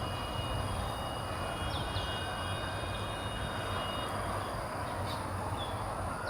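Outdoor background noise: a steady hum and hiss of distant traffic, a high insect whine, and a few quick bird chirps about two seconds in.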